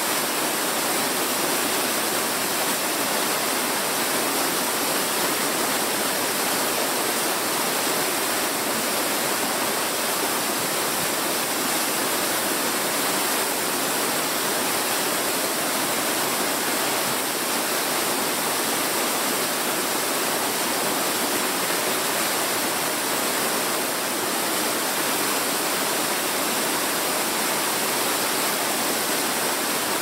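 Waterfall rushing steadily: an even, unbroken hiss of falling water with little low rumble.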